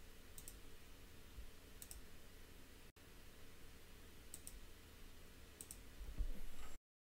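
Faint computer mouse clicks: about four quick press-and-release pairs spread through, over a low steady background hum. A louder low thump comes near the end, then the sound cuts off abruptly.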